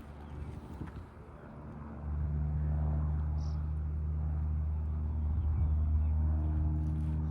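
An engine's steady low hum sets in abruptly about two seconds in and holds, growing a little louder near the end; before it, only a few faint clicks.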